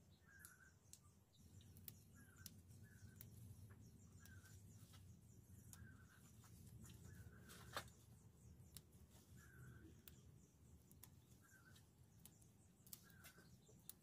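Near silence with faint snapping clicks as water spinach stems are broken by hand, the sharpest a little before halfway. A small bird chirps softly about once a second throughout.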